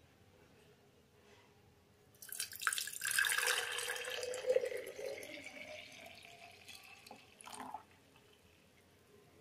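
Apple, beetroot and carrot juice poured from a steel bowl into a glass jug: a splashing stream that starts about two seconds in, is loudest at first and tapers off near the end.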